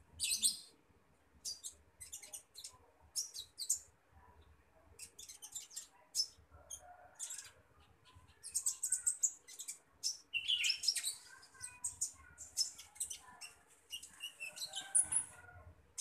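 Olive-backed sunbird chirping in its cage: quick, high, sharp chirps in short clusters, coming faster and louder in the second half.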